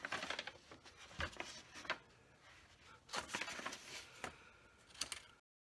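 Sheets of paper rustling and crinkling as they are shuffled and flapped by hand, in uneven bursts that stop abruptly near the end.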